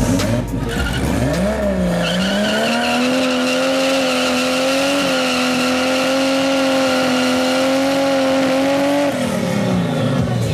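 BMW E30 with a turbocharged S38B36 straight-six doing a burnout. The engine revs up in the first couple of seconds and is held at steady high revs while the rear tyres spin and squeal, then the revs drop near the end.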